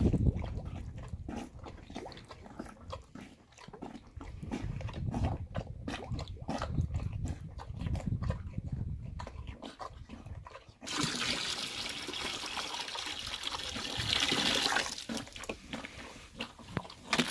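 Footsteps in snow, then about eleven seconds in warm water is poured into a frozen-over water bucket, splashing for about four seconds.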